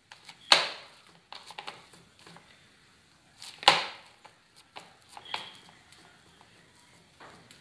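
A hand kneading and pressing a soft dough of breadcrumbs, rice flour and curd in a plastic bowl. There are two sharp knocks, about half a second and about three and a half seconds in, with lighter taps and squishes between them.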